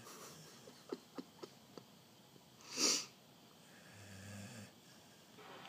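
Sleeping dog snoring: a few faint clicks, then a loud short breathy puff about halfway through, and a low buzzing snore with a steady pitch about four seconds in.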